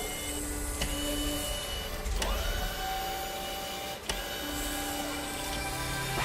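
Mechanical sound effects of whirring gears and a small motor, printer-like, with a rising whine about two seconds in and three sharp clicks spread through.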